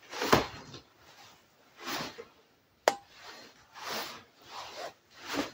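Crankshaft of a bare engine block turned over by hand, a handful of short swishing turns with one sharp metallic click about three seconds in; the crank turns freely.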